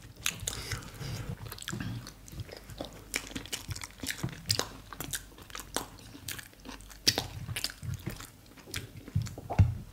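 Mouth sounds of two people chewing ewa agoyin beans, plantain and agege bread eaten by hand: many short, irregular clicks and smacks.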